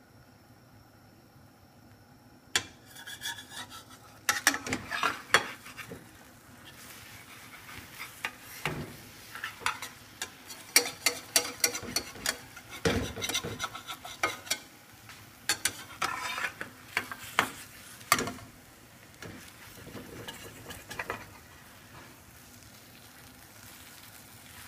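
A spatula scraping and knocking against a nonstick frying pan as an omelet is loosened and turned, in irregular strokes that start about two and a half seconds in. Eggs fry underneath with a soft sizzle.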